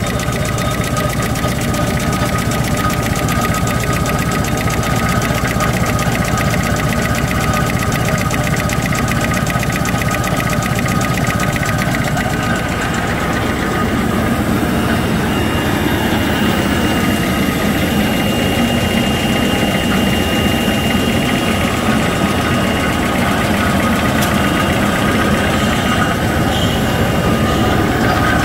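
XY-GU-20A box-drawing facial tissue folding machine running at speed: a loud, steady, rapid mechanical clatter of its folding rolls and drive. A thin high whine joins about halfway through for several seconds.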